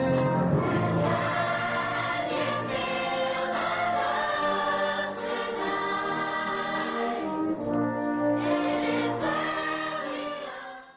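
A brass band playing slow, sustained chords that fade out near the end.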